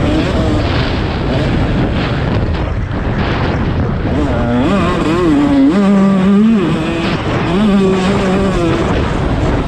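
Dirt bike engine revving up and down as it is ridden round the motocross track, its pitch climbing and holding level twice in the middle, over a dense rushing noise of wind on the microphone.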